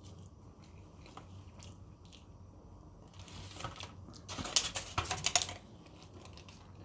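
Handling noise: a few scattered clicks, then a cluster of crinkling and clicking a little past the middle, over a faint low hum.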